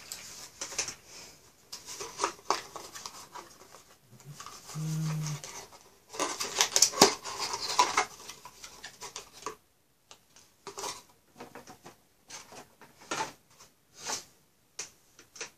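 Plastic and cardboard packaging crackling and clicking as a boxed Intel Xeon processor is unpacked from its clear plastic clamshell tray. The crackling is densest about six to eight seconds in, then thins to scattered clicks.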